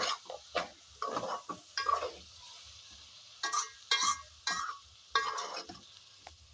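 A utensil stirring and scraping minced meat and onions in a cooking pot, in irregular strokes about every half second, over a steady sizzle of the meat frying.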